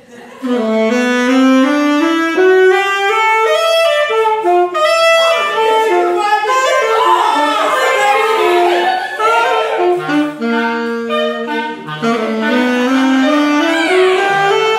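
Saxophone played live, a loud, lively melody of quick rising and falling runs of notes that starts abruptly about half a second in.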